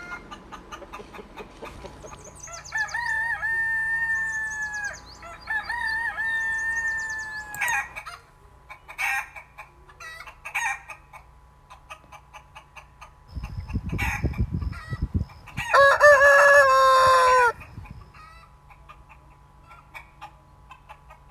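Rooster crowing and chickens clucking. Two long crows come a few seconds in and a louder crow about three-quarters of the way through, just after a short run of low thumps. Short clucks are scattered in between.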